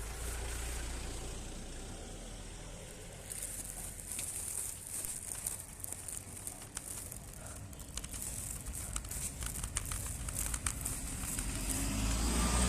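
Goclever City Rider 5's handlebar being tilted left and right, making an irregular clicking and crackling noise with a low hum underneath. The owner can't tell what fault is causing it.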